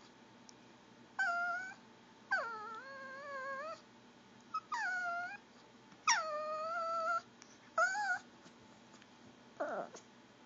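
Pomeranian making gurgling whines, begging for food. There are about six drawn-out whines, each starting high and dropping in pitch before holding with a wobble, and a short falling one near the end.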